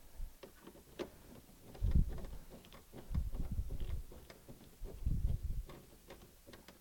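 Scattered light clicks and ticks from hands working at a car's dashboard switch panel, with three dull low bumps of handling about two, three and five seconds in.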